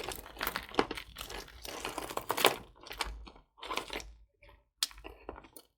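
Hands rummaging through a pile of costume jewelry: rustling with quick light clicks of chains and beads. The sound is busy for the first half, then thins to a few separate clicks.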